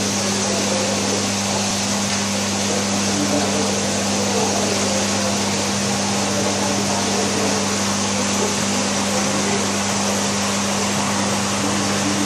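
Steady mechanical hum at a fixed low pitch under an even rushing hiss, unchanging throughout: aquarium system equipment, such as water pumps and aeration, running on a marine fish quarantine tank.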